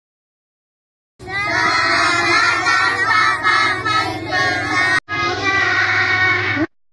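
A group of schoolchildren calling out a greeting together in Indonesian, loud and in unison. It starts about a second in, breaks off at a sudden cut near five seconds, resumes, and stops shortly before the end.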